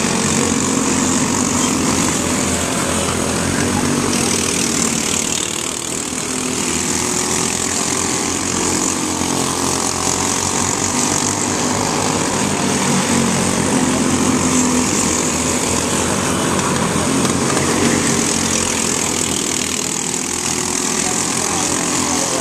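Several small microstock race cars racing on a short asphalt oval, their engines running hard together and swelling and fading as the pack laps, with the sound dipping briefly about six seconds in and again near the end.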